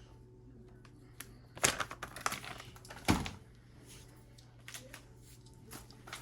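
Boxed firework cakes being handled and moved: scattered light knocks and clicks of cardboard, with a dull thump about three seconds in.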